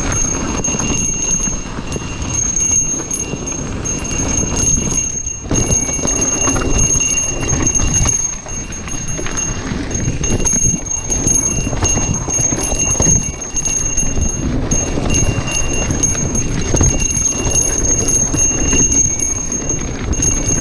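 Santa Cruz Heckler mountain bike descending a rough forest dirt trail at speed: continuous clatter and rattle of the bike and tyres over the ground, with wind noise, and a thin high ringing tone on top.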